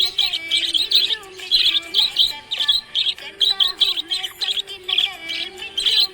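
Small pet parrots chirping in quick, high bursts, about two a second.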